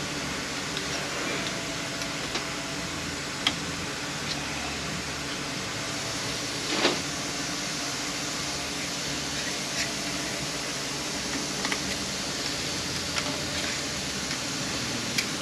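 Steady fan-like hiss of shop background noise, with a few scattered light clicks and taps from hand tools working on the transmission, the sharpest about seven seconds in.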